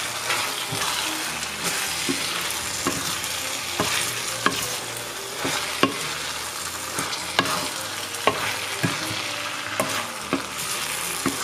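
Stir-fried pad thai noodles sizzling in a hot wok while a spatula tosses them, with irregular clacks and scrapes of the utensil against the pan.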